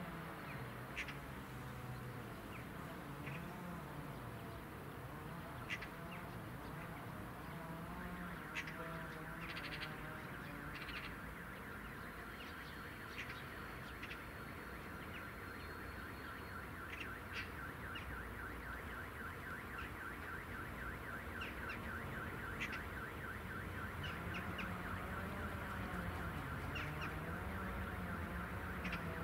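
A rapidly pulsing electronic warning tone at one steady pitch starts about eight seconds in and keeps going, over a low rumble with scattered short bird chirps.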